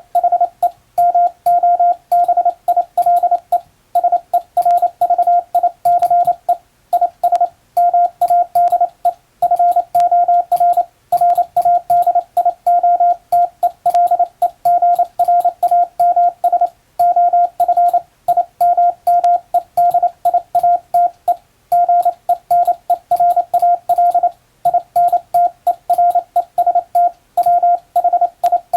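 International Morse code sent on a telegraph key and heard as a single-pitch beep switched rapidly on and off in dots and dashes, with short pauses between character groups. The signal is practice sending of English-language telegram text.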